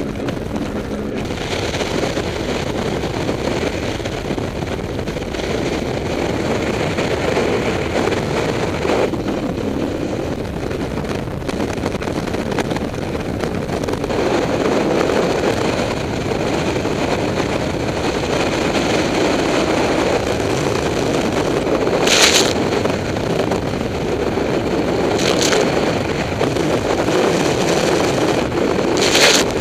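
Three Mercury Verado outboard motors running hard as a rigid inflatable boat pounds through storm chop: a steady engine drone mixed with rushing water, with three sharp bangs near the end as the hull slams into waves.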